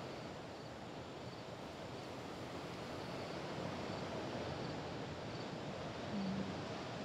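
Steady outdoor ambience of wind and distant surf, with faint high chirps repeating evenly about every second and a brief low hum about six seconds in.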